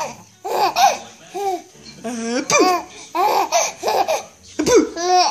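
Four-month-old baby laughing in a string of short, high-pitched bursts, each with a rising and falling pitch, about eight of them, with a quick fluttering one near the end.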